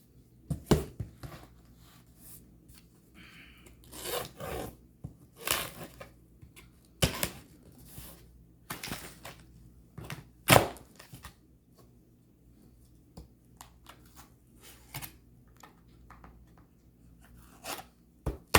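Parcel wrapping being torn and pulled open by hand: irregular ripping and scraping strokes with short pauses between, the sharpest about ten seconds in.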